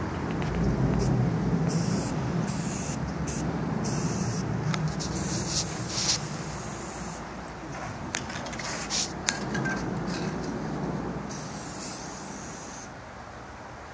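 Aerosol spray paint can hissing in repeated bursts, some short and some a couple of seconds long, as paint is sprayed onto a wall. A low steady rumble runs underneath, heaviest in the first half, with a few sharp clicks.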